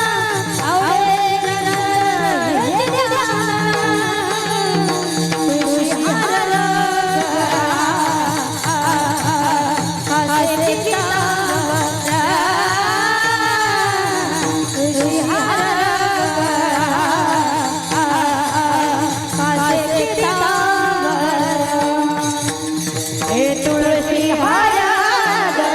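Devotional kirtan singing: a voice sings long, ornamented phrases that slide up and down in pitch. Instruments accompany it over a steady low drone.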